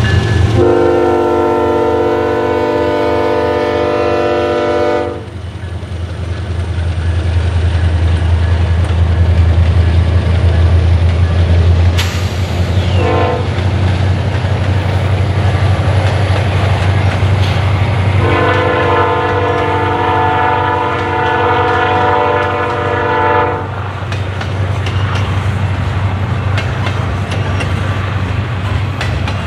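Union Pacific freight train's diesel locomotives pulling out slowly, with a steady low engine drone, while an air horn sounds two long multi-note blasts of about five seconds each, one just after the start and one a little past halfway. Through the rest, the double-stack intermodal well cars roll past with wheel clatter.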